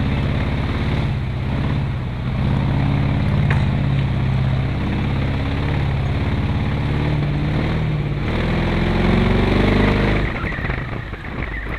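LPG-fuelled Chevrolet 350 small-block V8 in a modified Toyota Land Cruiser FJ40, running under load up a steep dirt climb. The engine note rises as it revs up near the end, then falls away into rough rattling noise.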